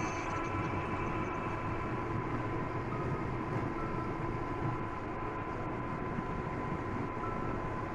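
A pot of liver and vegetables in broth at a rolling boil on a stovetop, giving a steady bubbling rumble. A faint steady high hum runs under it.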